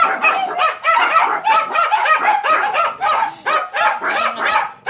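Several dachshunds barking rapidly and without pause at a vacuum cleaner, their short, high barks overlapping, several to the second: angry, agitated barking.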